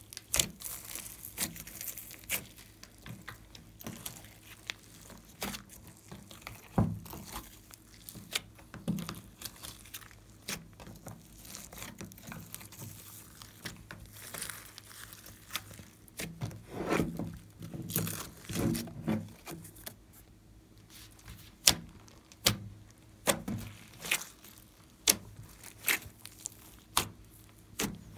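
Glossy slime being kneaded and squeezed by hand, with many sharp sticky pops and clicks as trapped air bursts and the slime pulls off the fingers. A denser run of wet crackling comes a little after the middle.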